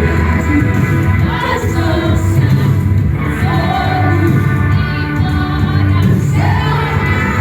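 Music: a Portuguese-language worship song, with voices singing over a full band.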